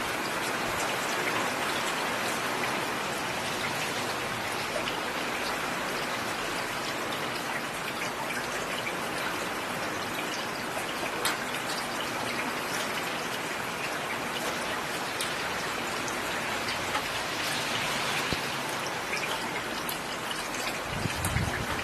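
Steady rain falling on a road surface: an even hiss of rain with scattered individual drop splashes. A brief low rumble comes near the end.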